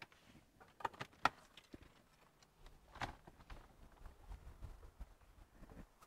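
Faint, scattered knocks and creaks of shoes on the treads of a steep wooden ladder-stair as someone climbs it, with a few sharper knocks about a second in and again around three seconds.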